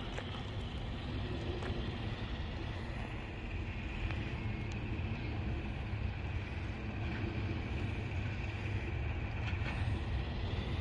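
Steady low outdoor rumble, mostly wind buffeting the microphone.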